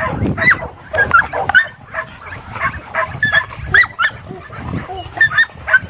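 Several Paladino Mastiff puppies yipping and barking in many short, high calls while they play.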